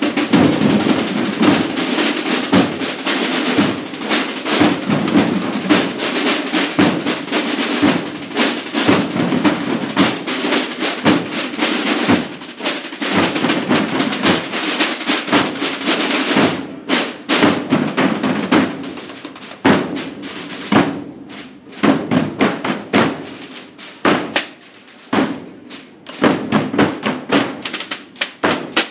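A corps of large rope-tensioned marching drums played together in a dense, continuous beat, thinning to more separate strokes about two-thirds of the way through.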